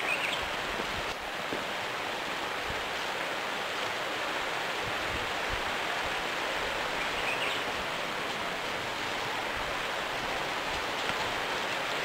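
Steady rushing outdoor noise with no distinct hoof strikes or other clear events, and two faint short high chirps, one at the start and one about halfway through.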